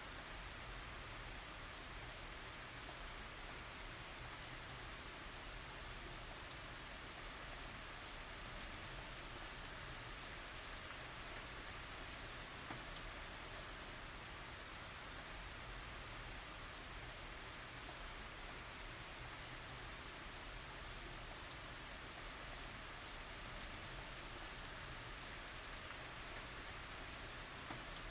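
Steady, gentle tropical rain falling, a soft even hiss with scattered individual drops.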